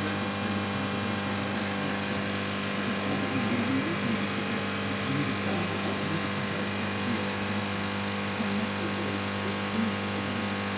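AWC 100-watt laser etcher powered up and idling, its laser head not yet moving: a steady electric hum with many evenly spaced overtones.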